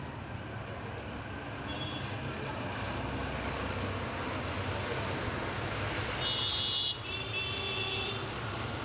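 Steady road traffic noise, a low rumble of passing vehicles, with two short high tones about six and seven seconds in.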